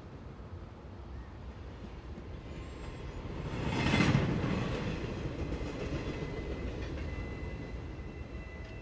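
A vehicle passing by: a rumbling noise that builds to a peak about four seconds in and then slowly fades. Faint steady high-pitched tones join it near the end.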